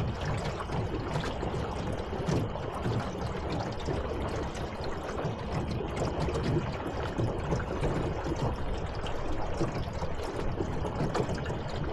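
Water sloshing and gurgling steadily against the hull of a small boat on a lake.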